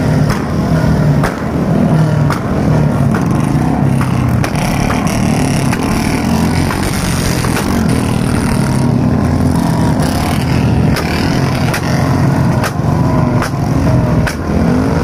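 Diesel tractor engine running loudly and steadily, with sharp irregular clicks about once a second.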